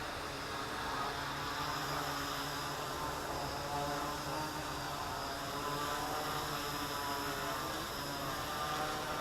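3D-printed Inspire 1 quadcopter's propellers whining as it flies, several pitches drifting slowly up and down as the motors change speed.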